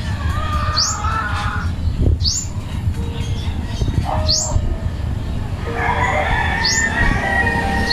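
Outdoor bird calls: a short, high, rising chirp repeated every second or two, with longer, lower wavering calls near the start and again over the last couple of seconds.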